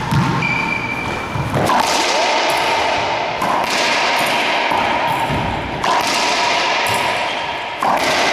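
Racquetball rally: the hollow rubber ball cracking off racquets and the court walls about every two seconds, each hit ringing out in the enclosed court.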